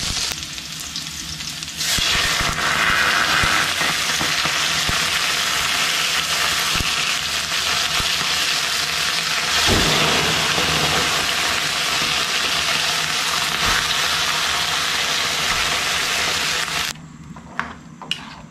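Octopus and garlic frying in a hot wok: a loud, steady sizzle. Near the end it drops off sharply to a quieter stretch with a few sharp clicks.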